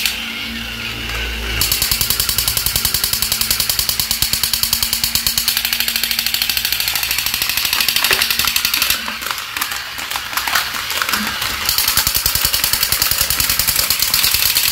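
Several battery-powered crawling soldier toys running at once: a fast, steady mechanical rattle from their small motors and toy gun effects. Plastic figures clatter as they are handled near the start and end.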